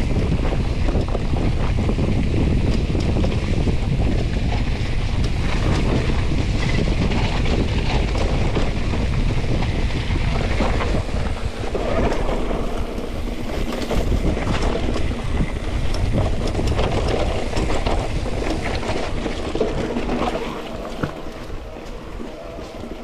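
Wind buffeting the microphone of a mountain bike rider's camera at speed, mixed with tyre noise and the clatter of the bike over a wet, muddy trail. It eases about three seconds before the end.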